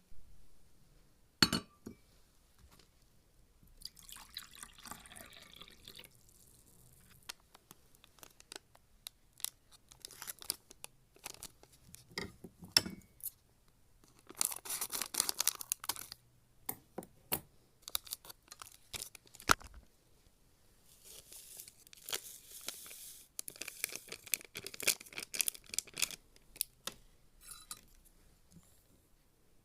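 Coffee being made by hand: scattered clinks and taps of glass cups and utensils, with several longer hissing, rushing stretches of liquid being poured or frothed.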